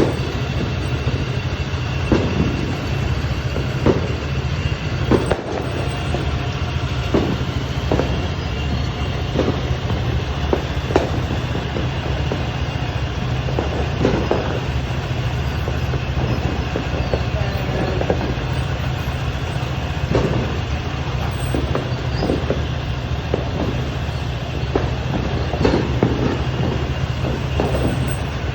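New Year's Eve firecrackers and fireworks going off, with sharp bangs every second or two over a steady low rumble.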